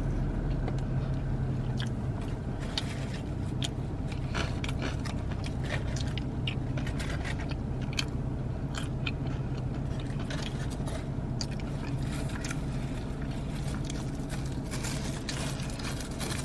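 Close-miked chewing of a crispy chicken sandwich topped with corn chips, with many small crunches and mouth clicks. A steady low hum runs underneath.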